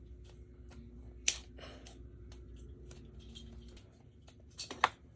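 Light clicks and rustles of a plastic Transformers action figure and its packaging being handled, with one sharper click about a second in.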